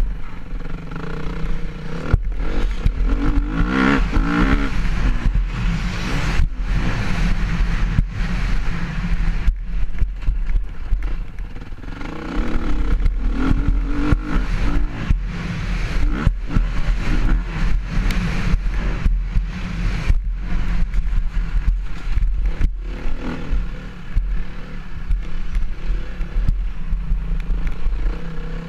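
Motocross bike engine revving hard and easing off over and over as the bike accelerates and brakes around the track, heard close up from the onboard camera, with a heavy low wind rumble on the microphone and jolts from the bumps.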